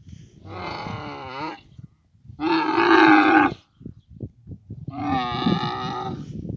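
Dromedary camels calling during mating: three long, pitched calls of about a second each, the middle one loudest, with short low sounds between them.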